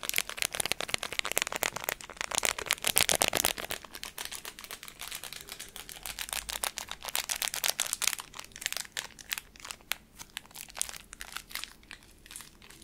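Crinkling and crackling of the packaging of a small boxed item handled close to the microphone. It is a dense run of crackles, loudest for the first three and a half seconds, then going on more softly.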